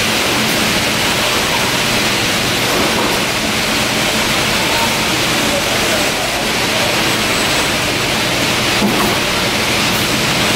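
Steady, even noise of running production-line machinery on a factory floor, with faint gliding whines in the background.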